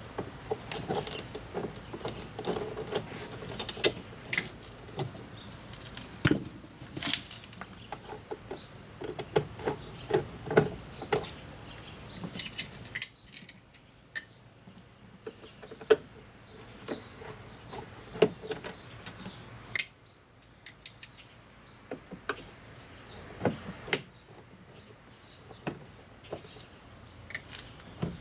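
Irregular clicks, light metallic clatter and a few sharper knocks from hand tools and screws working on a car door's interior panel and speaker.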